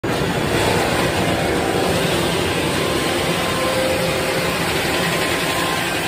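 Sawmill headrig with a 56-inch, 700-horsepower circular saw running: a steady, loud mill din as the carriage feeds a log into the blade.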